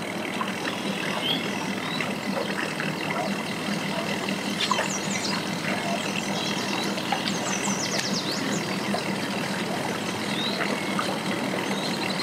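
Mercury outboard motor on a bass boat running at idle as the boat creeps in, a steady hum.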